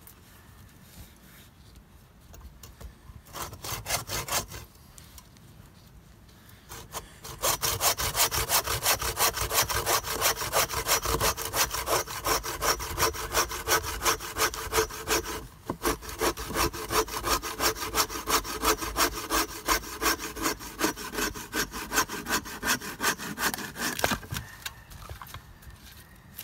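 Hand saw cutting through a log: a few short strokes, then steady rhythmic sawing from about seven seconds in, with a brief pause midway, stopping a couple of seconds before the end.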